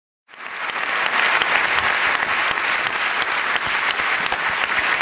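Large theatre audience applauding, a dense steady clatter of many hands clapping that cuts in abruptly just after the start.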